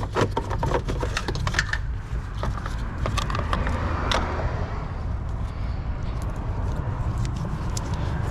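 Scattered light metallic clicks and clinks of bolts and parts being handled and hand-started during reassembly, over a steady low hum.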